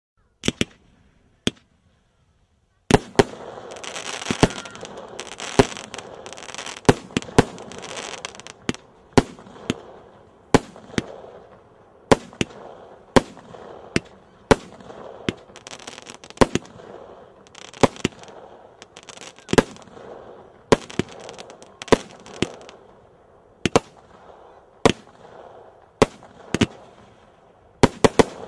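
Jorge 'Black Cat' 25-shot 30 mm firework cake firing. Two sharp bangs come in the first two seconds, then from about three seconds in a steady volley of shots, roughly one a second, with a hissing crackle between them.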